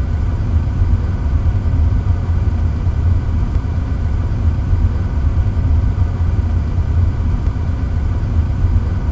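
Steady deep rumble of a locomotive standing at idle, with a faint hiss above it.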